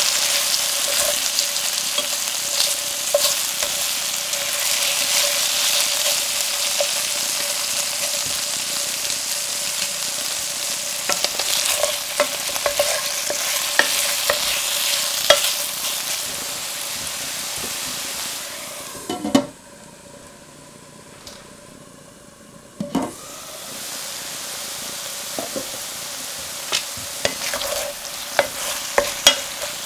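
Marinated beef pieces sizzling in a stainless steel sauté pan as they are stirred, with chopsticks and then a wooden spatula clicking and scraping against the pan. A faint steady hum runs underneath. The sizzle drops away for a few seconds about two-thirds of the way in, then comes back quieter.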